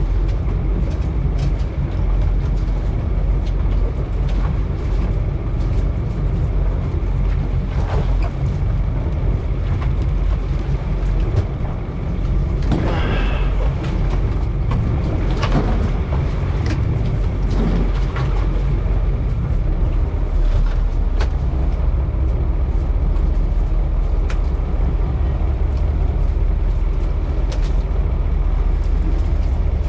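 Steady low rumble of a boat's engine running, with scattered sharp knocks and taps on the deck.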